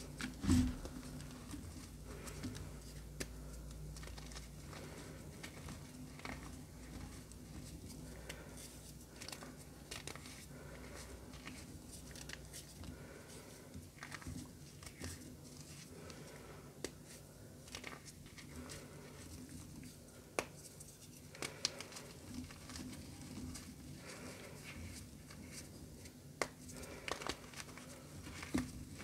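Reformed gym chalk crumbling and crackling as it is crushed, in scattered small cracks and patters, with a sharper snap about half a second in and a few more later.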